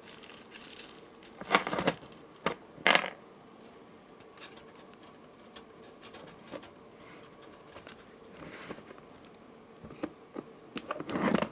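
A finished beaded necklace with metal charms being handled and laid out, its beads and metal parts clicking and rustling in short bursts. The loudest bursts come at about a second and a half in, again near three seconds, and near the end.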